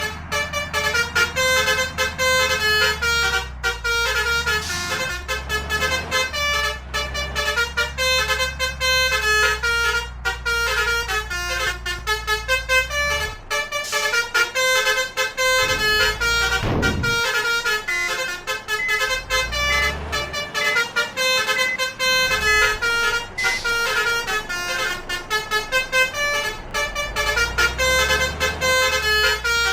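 Bus 'telolet' basuri trumpet horns playing a rapid tune of stepped notes that change several times a second, with hardly a break. The bus engines run low underneath.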